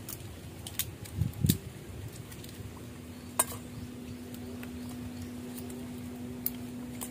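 Dishes and utensils clinking a few times, with a dull thump about a second and a half in, over a steady low hum.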